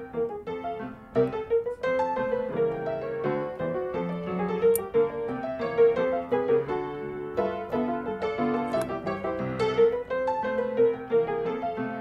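Background piano music: a lively run of piano notes over a steady melody.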